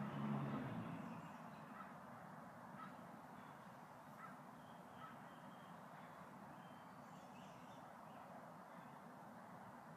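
Faint outdoor ambience: a steady background hiss, with a brief low pitched sound that swells and fades in the first second or so, and a few faint short chirps after it.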